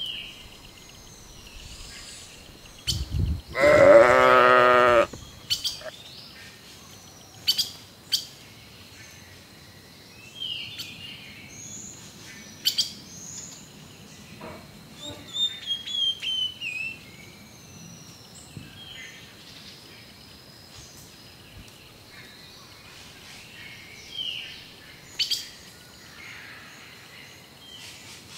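Small birds chirping and tweeting, with one long, wavering bleat, the loudest sound, about three to five seconds in. Scattered sharp clicks sound between the calls.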